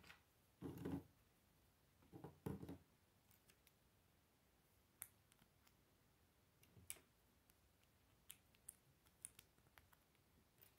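Plastic LEGO pieces being handled on a wooden table: a couple of dull knocks and rattles in the first few seconds as pieces are picked up, then scattered light clicks of bricks being fitted together.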